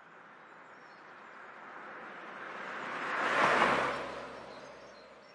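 A passing vehicle, its noise swelling to a peak about three and a half seconds in and then fading away.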